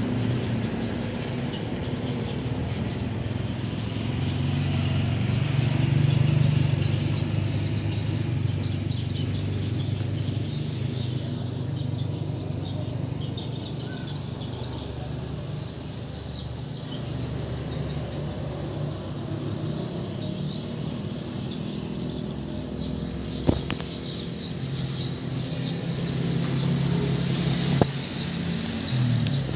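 A steady low hum like a motor running, with birds chirping faintly in the background and two sharp clicks near the end.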